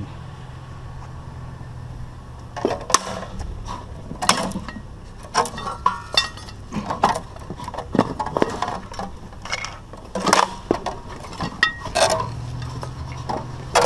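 Irregular metallic clanks, knocks and clinks, some ringing briefly, as a battered ceiling fan's metal housing and parts are handled and knocked about. They start a couple of seconds in and keep coming in uneven bursts.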